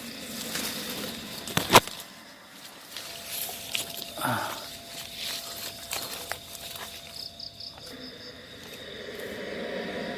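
Insects, cricket-like, calling at dusk with a steady high trill and a short pulsed chirping near the end. A few sharp knocks or footsteps sound over it, the loudest about two seconds in.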